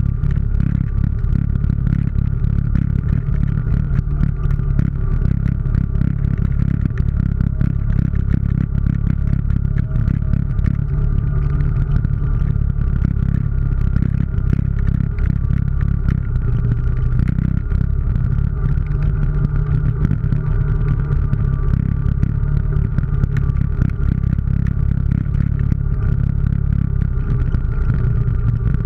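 ATV engine running steadily while the machine drives along a rough dirt trail, with frequent small jolts and rattles from the bumpy ground.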